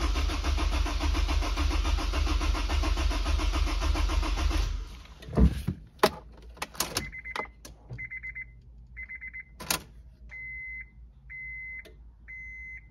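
Honda S2000's 2.0-litre four-cylinder engine turning over on the starter motor, cranking steadily for about five seconds without catching: the fuel pump is getting no power because its connector on the fuel-tank top hat was left unplugged. The cranking stops, a thump and a few clicks follow, and then the car's warning chime beeps about once a second.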